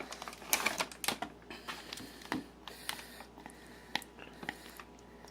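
A spoon clicking and scraping against a container while dog treats are stirred into salsa: a scatter of sharp irregular taps that thin out after about four seconds.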